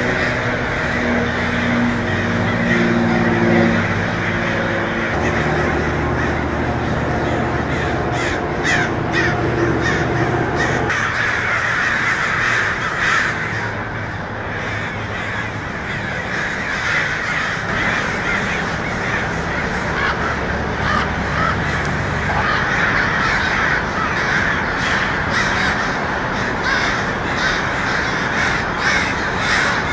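Many crows cawing together without a break, harsh overlapping calls from a flock in the air. A low steady hum runs underneath for the first third.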